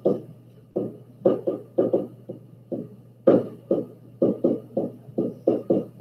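Pen strokes on a SMART Board interactive whiteboard: a rapid, uneven run of short taps and scratches, about three or four a second, as a heading is written letter by letter, over a steady low hum.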